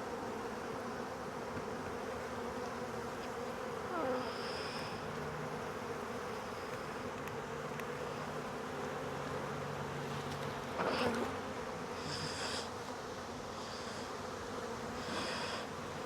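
Honey bees buzzing in a steady hum around an open hive during a frame inspection, with brief louder swells about four and eleven seconds in as the sound rises and falls in pitch.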